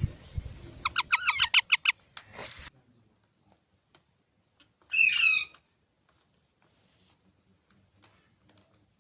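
Baby parrots calling: a quick run of about ten sharp squawks about a second in, and a short noisy burst after it. After a pause comes one longer harsh screech that falls in pitch, about five seconds in.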